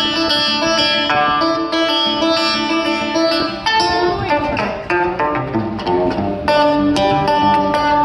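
Banjo picked in quick continuous runs of notes, amplified through the stage's PA speakers during a sound check.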